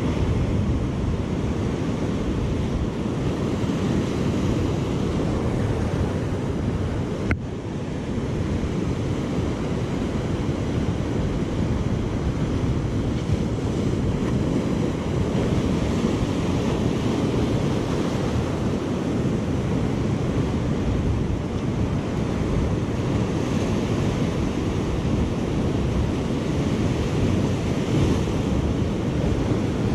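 Ocean surf breaking and washing over a rocky shore, with wind buffeting the microphone. One sharp click about seven seconds in.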